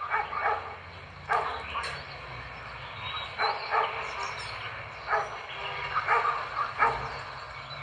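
A dog barking repeatedly, short single barks coming in uneven bunches about every second or so.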